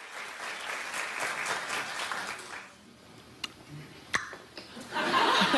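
Television studio audience applauding and cheering, dying away after about two and a half seconds. A couple of sharp clicks follow in the lull, then the crowd noise picks up again near the end.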